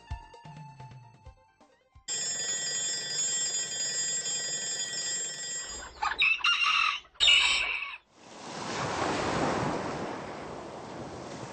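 A run of sound effects: a steady ringing for about four seconds, then two short loud calls, then a rushing noise that swells and fades away.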